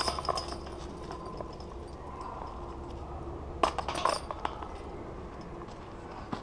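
A sharp click at the very start, then about three and a half seconds in a disc golf basket's metal chains and cage clink in a quick cluster as a disc drops in.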